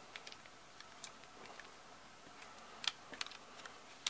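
Faint, scattered small clicks and taps of a screwdriver and metal parts being handled while screws are worked out of a Pietta 1851 Navy revolver's grip frame. The sharpest click comes about three seconds in, followed by a few quicker ones.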